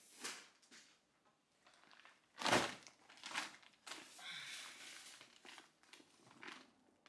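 Plastic grocery bags rustling and crinkling as items are rummaged out of a large shopping tote, with one sharp thump about two and a half seconds in.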